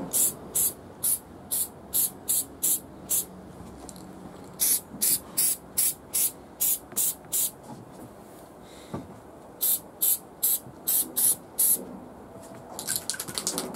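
Aerosol spray paint can hissing in short spurts, about two a second, in three runs with brief pauses between, as dark green paint is sprayed onto plastic Lego bricks.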